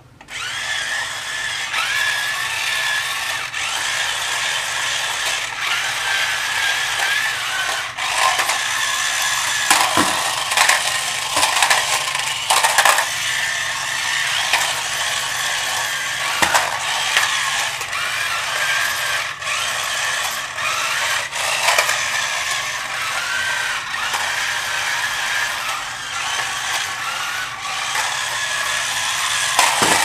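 Sharper Image X-Treme Vortex RC stunt vehicle driving on a tile floor: the steady high whir of its small electric wheel motors and plastic gears, broken now and then by short clacks and knocks as it tumbles and hits the baseboard.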